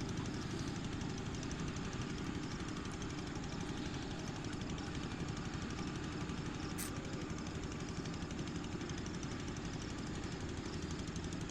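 An engine running steadily with a rapid, even pulse, and one short click about seven seconds in.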